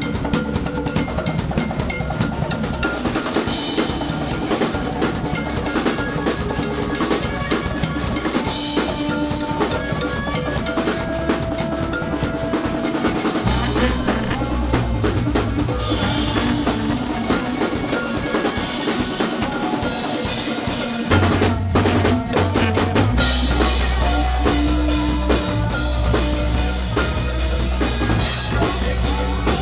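Live rock band playing: a busy drum kit with snare and rimshot hits, with electric guitar and keyboards. A heavy low bass part comes in about halfway and grows louder near the end.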